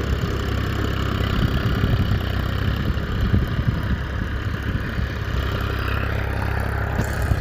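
A small engine running steadily at idle, a continuous low sound with a fast flutter.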